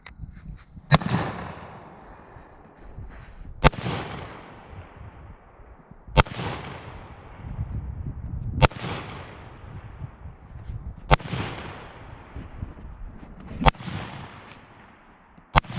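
AR-15 rifle fired slowly and deliberately, seven single shots about two and a half seconds apart, each followed by a long fading echo.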